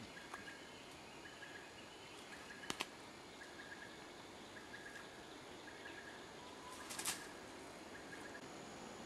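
Quiet forest ambience: a faint steady hiss with small groups of short, high chirps repeating at one pitch. A sharp double click comes nearly three seconds in, and a brief crackle about seven seconds in.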